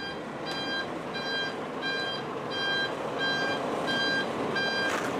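Truck's reversing alarm beeping steadily, about four beeps every three seconds, over a low steady vehicle noise. A short hiss cuts in near the end.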